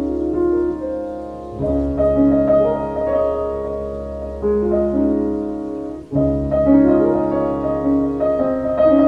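Piano-like keyboard music playing held chords, with a new chord struck about a second and a half in and again just after a brief break about six seconds in.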